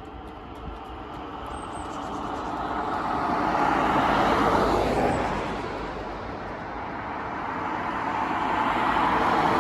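Road traffic: two cars pass one after the other, their tyre and engine noise swelling to a peak about four seconds in and again near the end.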